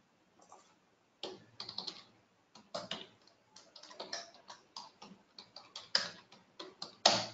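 Computer keyboard typing: quick, irregular runs of keystrokes as a username and password are entered, with one louder keystroke near the end.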